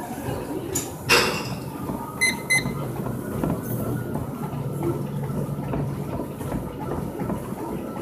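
A sharp knock about a second in, then two short electronic beeps close together, over a steady rumbling background with a low hum.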